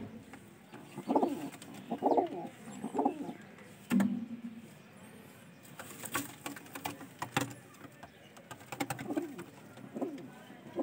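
White domestic pigeons cooing, a string of low coos about a second apart, with a cluster of sharp clicks and taps in the middle.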